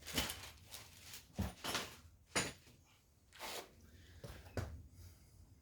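Metal engine parts and hand tools clinking, knocking and scraping during an engine teardown, as a handful of separate short knocks with scrapes between them.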